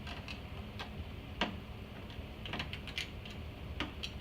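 Irregular light clicks and taps, about a dozen, of a grounding tool touching metal while the iMac G3's CRT and its capacitors are being discharged to ground.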